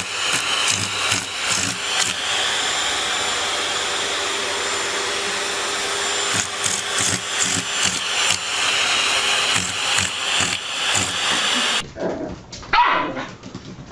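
A steady whirring motor like a vacuum cleaner's, with scattered short knocks. Near the end it cuts off abruptly and a short falling squeal follows.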